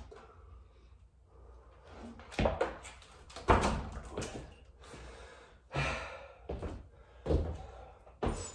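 Dull thuds of hands and feet landing on the floor during burpee push-ups and lunges, about five of them at uneven spacing, the loudest about three and a half seconds in, with hard breathing between them.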